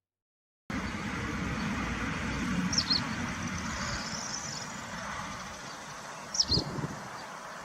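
Steady outdoor background noise that starts after a brief silence, with two short high chirps about three and a half seconds apart and a low thump near the end.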